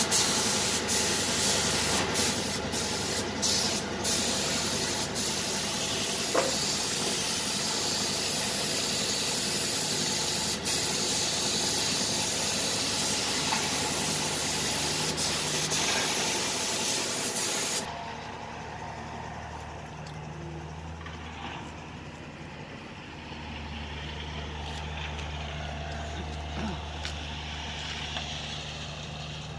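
Compressed-air spray gun hissing steadily while spraying finish onto a wooden cot, with a few brief breaks near the start. About 18 seconds in the hiss cuts off suddenly, leaving a quieter steady low motor hum.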